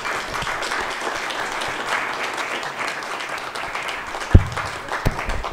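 Small audience applauding, the clapping thinning out near the end, with two sharp low thumps toward the close.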